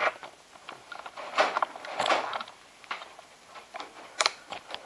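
Handling noise: an irregular scatter of clicks, knocks and rustles from the camera being picked up and moved, loudest about two seconds in, with another sharp click near the end.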